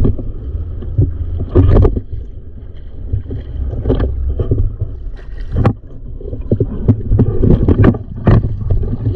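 Gusting wind buffeting the microphone: a heavy, uneven low rumble broken by several sharp thumps and knocks.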